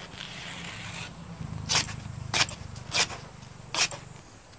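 Taro stalks being cut by hand against a boti, a fixed upright curved blade: a short rustling scrape, then four crisp slicing cuts about two-thirds of a second apart.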